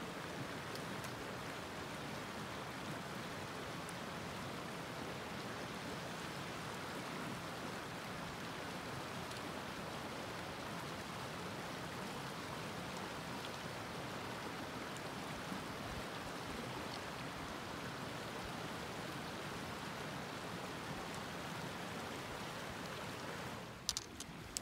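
Shallow mountain creek running over rocks: a steady, even rush of water. Near the end the rush drops away and a few sharp clicks and knocks sound.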